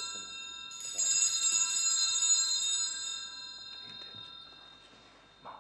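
Altar bells (Sanctus bells) shaken at the elevation of the host during the consecration. One ring dies away at the start, then a second shake about a second in rings out brightly and fades over a couple of seconds.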